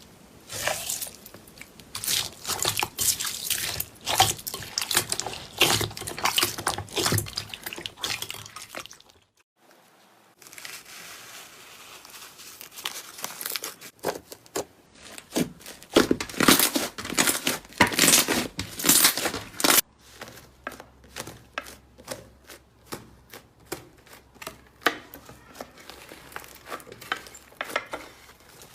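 Slime being squished, stretched and pulled by hand: sticky crackling and tearing sounds, with a short pause about nine seconds in and a run of sharp little pops in the later part.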